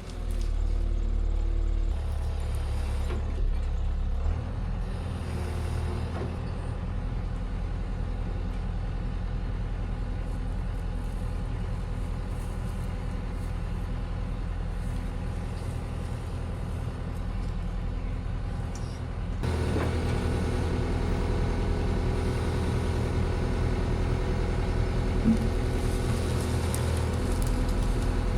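Diesel engine of a piece of heavy machinery running steadily, getting louder about two-thirds of the way through as it works harder.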